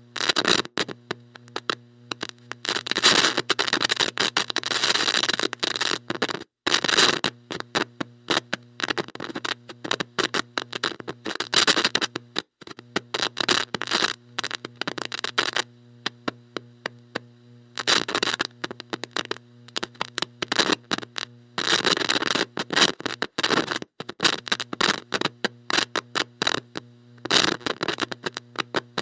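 Bad electronic connection: a steady electrical buzz under heavy static crackle that cuts in and out irregularly, with a couple of brief dropouts to silence.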